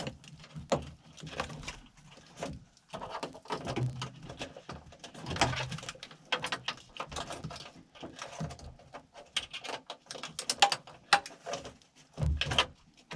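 Irregular clicks, knocks and rattles of plastic and metal parts being worked free inside a BMW car door during disassembly for a door lock actuator replacement.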